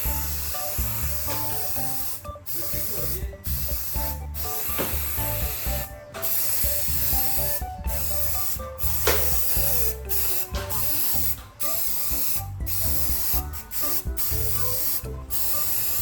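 Aerosol spray paint hissing in repeated passes, broken by brief gaps, over background music with a steady beat.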